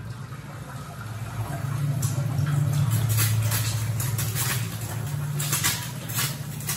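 Egg frying on a hot flat griddle (tawa): oil sizzling and crackling, growing louder about two seconds in, with a low hum underneath.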